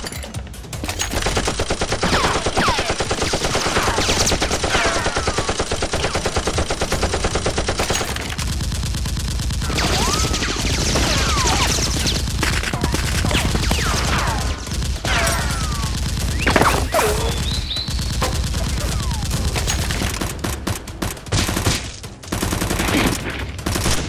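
Sustained rapid machine-gun fire sound effects, shot after shot in dense bursts, with short falling whistles like ricochets scattered through it.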